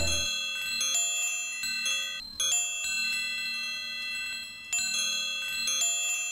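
Music: high, bell-like chime notes struck one after another and left ringing over a soft low held note, with a brief hush about two seconds in.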